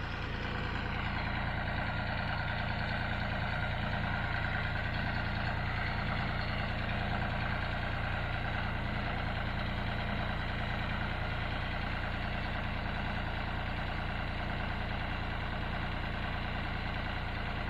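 John Deere 5055D tractor's three-cylinder diesel engine running steadily at an even idle.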